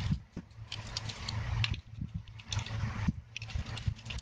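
A small precision screwdriver unscrewing the tiny back screws of a Samsung GT-E1195 flip phone: quick clicks and two spells of scraping as the bit turns in the screw heads, with dull knocks from the phone being handled.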